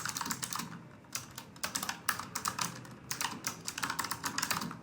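Typing on an A4Tech Bloody B840 mechanical keyboard: rapid key clicks in bursts, with short pauses between them.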